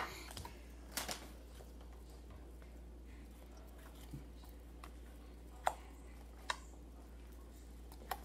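A quiet room with a low steady hum and a few faint, short clicks and taps: plastic slime tubs and their lids being handled on a wooden table, with slime being picked up.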